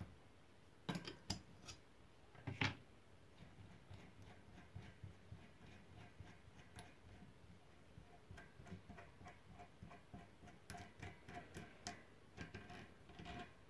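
Faint light metallic clicks and ticking from the axle nut and cone of a Shimano 3CC three-speed hub being turned off the axle threads by hand. There are a few sharper clicks in the first three seconds and a quick run of small ticks in the last five.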